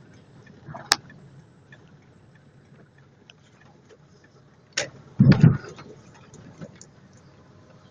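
Inside a car rolling slowly on a wet street: steady low engine hum with scattered light ticks of raindrops on the windshield, then about five seconds in a loud low thump as the wheels go over a row of raised road studs.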